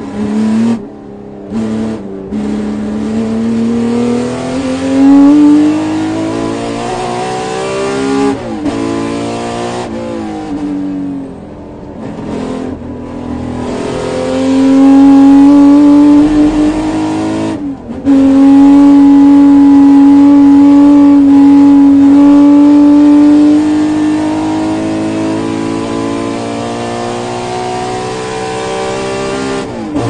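Ferrari 250 GTO's 3.0-litre V12 driven hard on track, heard from inside the cockpit. Revs climb with brief breaks at gear changes, fall off with short dips around the middle, then build again. After a shift about 18 seconds in, the engine holds high steady revs at its loudest for several seconds before the pitch slowly falls near the end.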